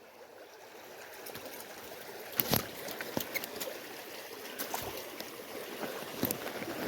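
Mountain stream water flowing steadily, with a few scattered clicks and knocks, the loudest about two and a half seconds in.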